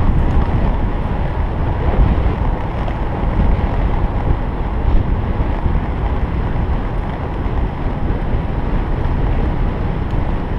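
Steady wind noise on the microphone of a camera riding on a moving road bicycle, a low, even rush with no breaks.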